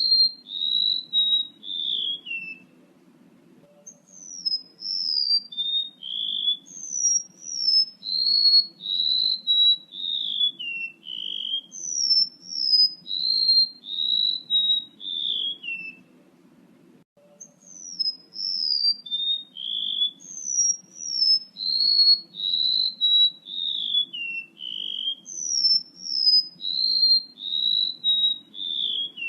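Lure recording of a male rementuk laut bird calling: long runs of short, high whistled notes, each sliding downward, with two pauses, one a few seconds in and one about midway, over a faint low hum.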